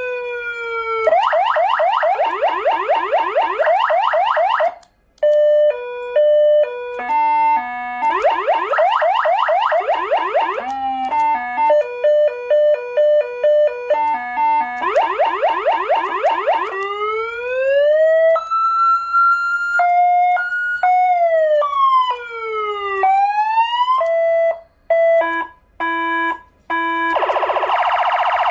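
Electronic siren of an SA830 400-watt siren unit cycling through its tones. Fast repeated rising sweeps alternate with stepping multi-note patterns, then give way to slower rising glides, up-and-down slides and a run of short beeps, with a quick break between patterns.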